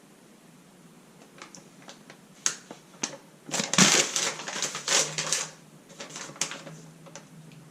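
Handling noise: scattered light clicks and taps, then a burst of crinkling rustle about three and a half seconds in that lasts around two seconds, as of a sheet or packaging being handled.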